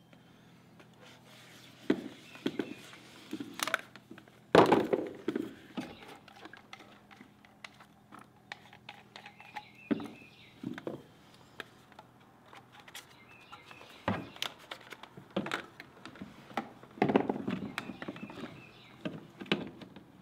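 Plastic drain pipe pieces and fittings being handled, knocked together and set down on a plywood subfloor: scattered knocks and clicks, the loudest about four and a half seconds in.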